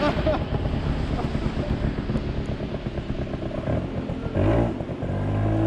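Kawasaki KX60 dirt bike's small two-stroke engine running with a fast, rough pulsing, then revving up about four and a half seconds in and holding a steady higher rev.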